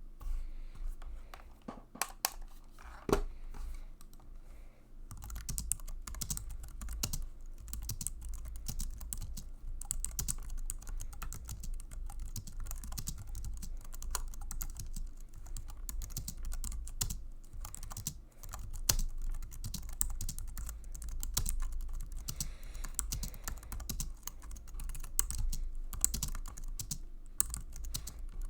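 Typing on an Apple full-size keyboard: a few scattered key presses, then steady, fast typing from about five seconds in.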